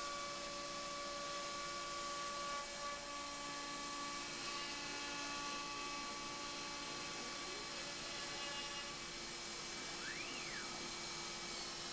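CNC router spindle running steadily at about 16,000 RPM with a 1/4 inch 60-degree V-bit, slowly engraving treated fence board: an even whine with several steady tones over a hiss.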